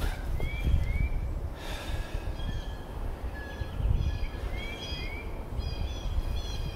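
Small birds chirping in short rising notes over a steady low rumble, with a person's heavy breath about one and a half seconds in while straining at a boulder.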